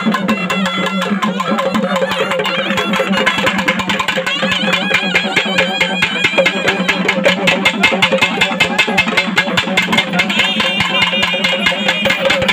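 Loud festival music for the devotees' dance: fast, dense drumming with a wavering melody line over it.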